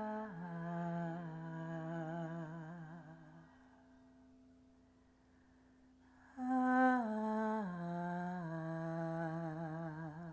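A voice humming a slow phrase that steps down in pitch over three notes, with a slight waver, heard twice: one phrase trails off about three and a half seconds in and the next begins about six and a half seconds in. A faint steady tone sustains underneath.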